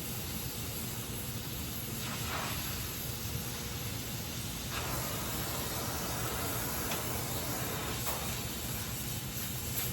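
Gas welding torch flame hissing steadily while aluminium is flame welded.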